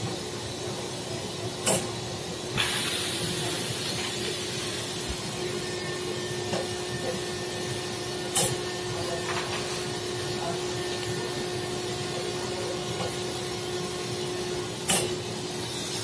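Two-head airjet and vacuum bottle-cleaning machine running with a steady hiss of air and a faint hum while glass perfume bottles are held on its nozzles. A brief sharper blast of air comes about two and a half seconds in, and three sharp knocks are spread through.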